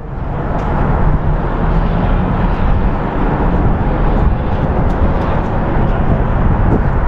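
Steady, loud rumble of road traffic on the highways below, a constant noise heaviest in the low end, with no single vehicle standing out.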